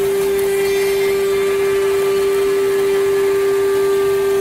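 Five-axis CNC router spindle running with one steady whine while its cutter machines wood, over a rough cutting noise.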